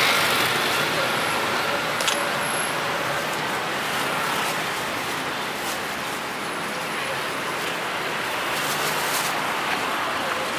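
Steady street traffic noise from passing road vehicles, with one sharp click about two seconds in.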